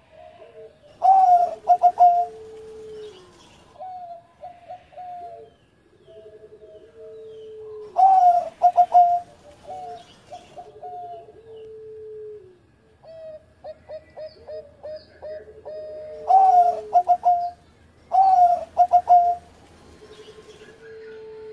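Zebra dove (perkutut) cooing: repeated phrases of quick, stuttering notes and drawn-out tones, with a few phrases much louder than the rest.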